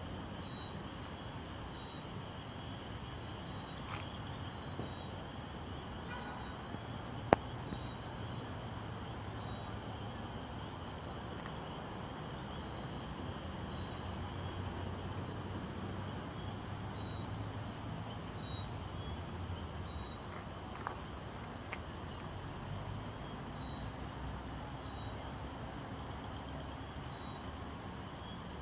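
A night chorus of insects such as crickets trills steadily in several high pitches, with short chirps repeating over it and a low background rumble. A single sharp click about seven seconds in stands out above the chorus.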